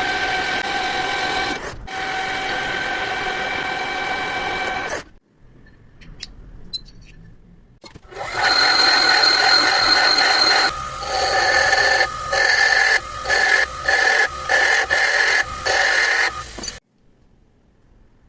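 Metal being machined on a machine tool: the cutter rings with a steady pitched whine while it cuts. There are two long cuts in the first five seconds, then after a pause a longer cut that turns into a string of short, stop-start cuts before it stops.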